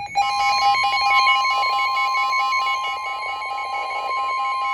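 Emergency Alert System attention signal: a loud, steady two-tone alert tone that starts abruptly, the signal that an emergency warning broadcast is about to follow.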